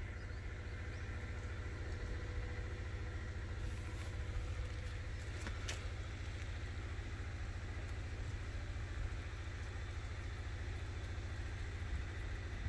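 Steady low rumble, with a few faint clicks about four and six seconds in.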